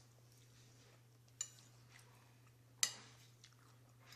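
Metal spoon and fork clinking against a ceramic plate twice, a lighter tap about a second and a half in and a louder clink with a short ring near three seconds, over a steady low hum.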